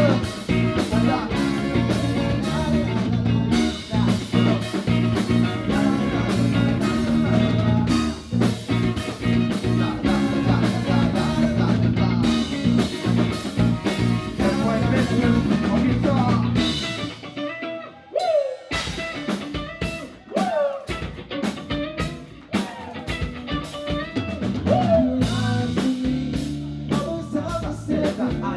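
Live band playing a medley with drum kit, guitar and singing. A little past the halfway point the bass and drums fall away for a few seconds of sparser playing, then the full band comes back in.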